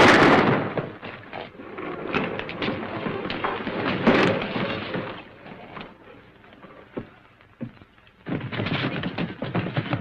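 A sudden loud crash, then several seconds of noisy scuffling with knocks. After a quieter stretch, a busy clatter of many footsteps starts about eight seconds in.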